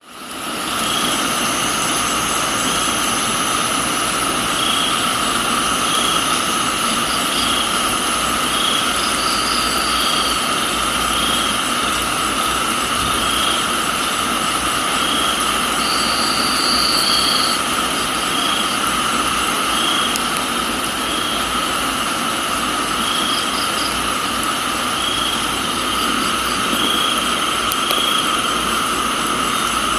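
Crickets trilling in a steady chorus at several pitches, one of them pulsing about every second and a half, over the even hiss of rain. A shorter, higher trill comes in twice, about ten and sixteen seconds in. The sound fades in over the first second.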